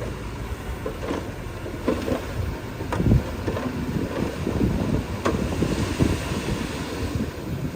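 Heavy diesel earth-moving machinery running with a steady low rumble, with sharp knocks about one, three and five seconds in.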